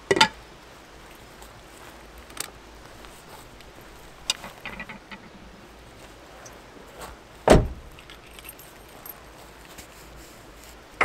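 A car door slams shut about seven and a half seconds in, a heavy low thump and the loudest sound. A sharp metal clank at the very start as a pan is set down on a cooler, with light clicks and key rattles in between.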